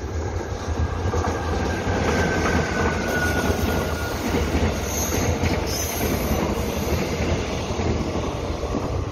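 Seven-car Mugunghwa-ho passenger train hauled by an electric locomotive passing at speed, its wheels rumbling steadily on the rails. A thin high whine falls slightly in pitch between about one and a half and four seconds in.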